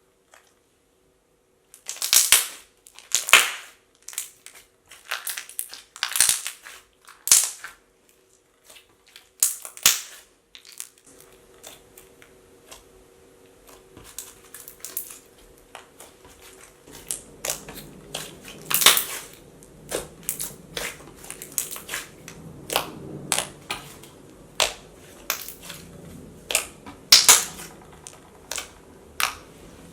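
Thick, glossy slime worked by hand, making sharp clicky pops at irregular intervals, a few loud ones among many small ones. From about halfway on, softer squishing runs underneath the clicks.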